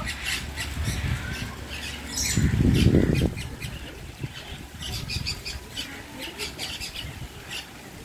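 Many caged birds squawking and chirping in quick, overlapping calls. A loud low rumble lasting under a second comes about two and a half seconds in.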